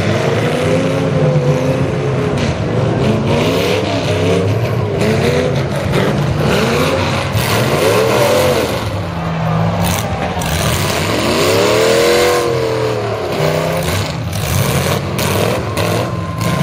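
Several demolition derby cars revving hard, engine pitches climbing and falling over one another, with the biggest rev a little past the middle. Sharp bangs of cars colliding come about ten seconds in and again near the end.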